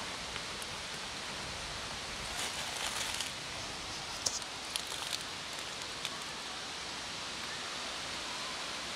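Kittens eating dry kibble from a plastic tub: a few small, scattered crunches and clicks over a steady background hiss.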